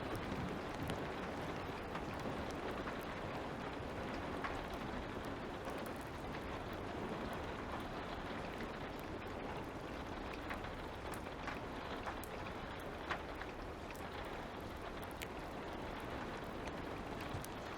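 Light rain falling steadily, with scattered small crackles and pops from a fire.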